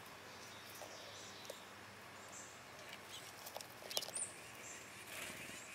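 Grey squirrel feeding at a ground feeder, with a few sharp clicks and cracks of seed hulls about four seconds in. Faint woodland hiss throughout, with short, high bird chirps now and then.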